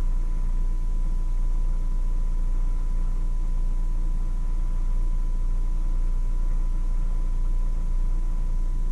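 Steady low hum with a faint constant high-pitched tone over it, unchanging throughout.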